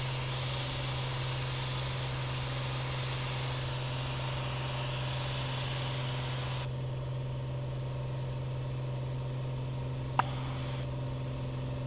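Steady drone of a Piper Cherokee 235's Lycoming O-540 engine and propeller at takeoff power in the climb, heard inside the cockpit. The rushing hiss over it drops away suddenly about two-thirds of the way through, and there is a single short click near the end.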